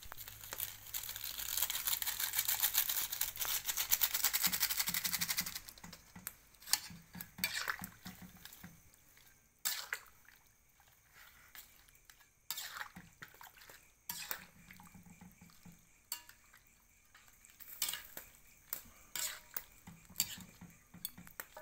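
Softshell turtle meat cooking in curry broth in a metal wok over a wood fire: a dense sizzling and bubbling for about the first five seconds, then scattered clinks and taps of a ladle against the wok.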